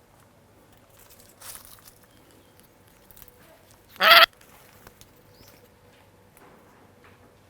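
A farm bird gives one short, loud call about four seconds in, over quiet outdoor background.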